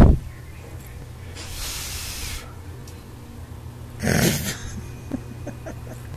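Husky sniffing along the floor, with one sharp snort about four seconds in, followed by a few light clicks.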